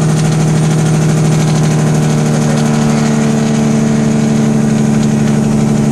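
Semi-truck diesel engine droning steadily inside the cab while cruising downhill at highway speed, with a slight change in its tone about two seconds in.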